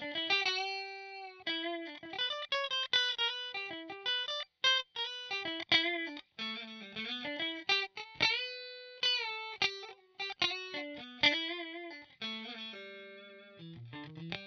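Squier Affinity Stratocaster electric guitar playing a single-note lead melody through a multi-effects processor, with quick picked runs and a few long held notes that waver with vibrato.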